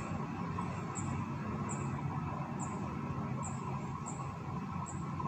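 Quiet outdoor ambience: a steady low hum of distant traffic, with a faint high chirp repeating about once a second.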